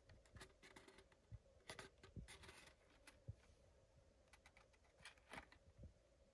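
Faint, scattered clicks and crinkles of a toy car's plastic blister pack and card backing being handled and turned over.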